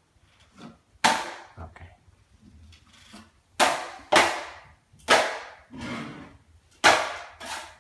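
A drywall finishing blade scraping and clacking against a mud hawk as joint compound is loaded and worked: a series of sharp scrapes, about six of them loud, each trailing off quickly.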